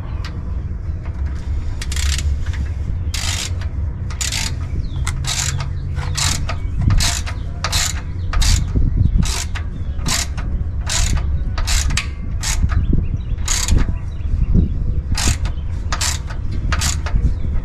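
Hand ratchet wrench clicking as it turns a bolt on a sway bar bracket: a string of short, sharp clicks, more than one a second, over a steady low rumble.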